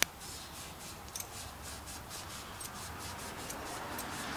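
Scotch-Brite pad scrubbing around inside the groove of a hydraulic cylinder's metal head gland, a steady scratchy rubbing as it takes out rust. A sharp click at the very start.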